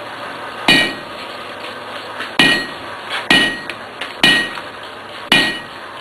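Hand hammer striking a red-hot iron bar on an anvil, five blows at an uneven pace, each with a brief metallic ring.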